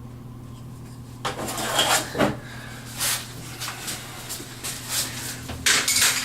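Irregular knocks, taps and clatter of tools and screws being handled inside a wooden vanity cabinet, starting about a second in, over a steady low hum.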